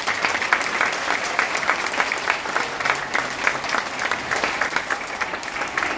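An audience of schoolchildren clapping in steady applause.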